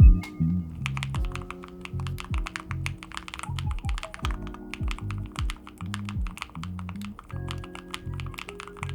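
Typing on a NuPhy Air100 V3 low-profile mechanical keyboard: a fast, uneven run of light key clicks starting about a second in, over background music with a steady beat.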